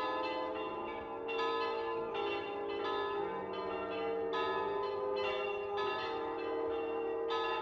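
Church bells pealing: several bells struck one after another, about two strokes a second, their tones ringing on and overlapping.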